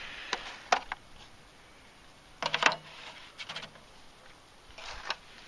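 Disposable aluminium foil pan being handled: a few scattered light clicks and crinkles, with a short cluster of them about halfway through.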